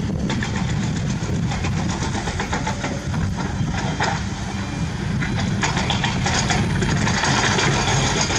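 A motor running steadily with a fast, dense rattle, a little louder in the second half.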